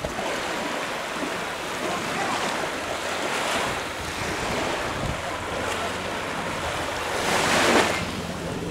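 Surf washing onto a sandy beach, with wind rushing over the microphone. The wash swells about three and a half seconds in and is loudest near the end.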